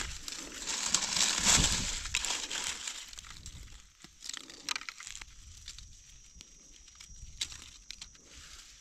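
Dry leaf litter crunching and rustling as gloved hands dig out wild mushroom buttons and a knife trims their stems. It is loudest about one to two seconds in, then settles into soft scattered clicks and rustles.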